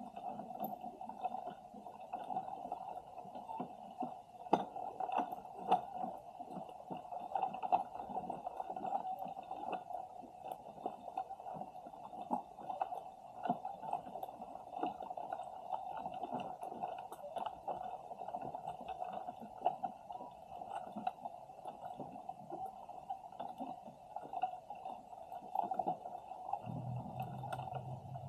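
Muffled underwater sound picked up by a submerged Insta360 X3 camera: a steady dull rush with many scattered clicks and crackles. A low hum comes in near the end.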